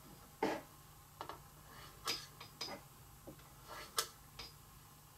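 Quiet, irregular clicks and taps of small plastic toy tuna pieces being handled and pressed together on their board; the parts join by magnets. There are about ten light clicks, the sharpest about half a second in and again at about four seconds.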